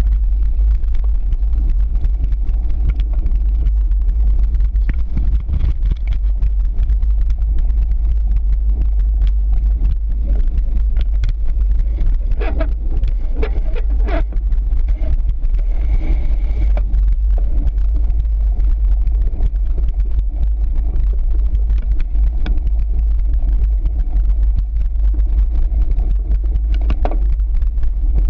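Wind buffeting and ground rumble on a handlebar-mounted action camera as a cyclocross bike is ridden over a rough dirt course: a steady, loud low rumble with rattles and knocks from the bike over bumps, clustered around twelve to fourteen seconds in.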